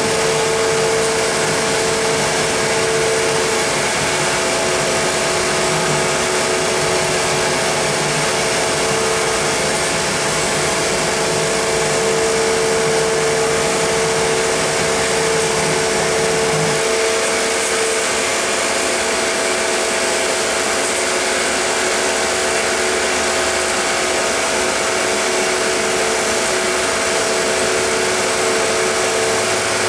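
Cessna aircraft combustion heater's blower fan running steadily in its post-purge blow-through after the burner is shut off: an even whirring with a steady hum. About 17 seconds in, the low rumble drops away while the fan keeps running.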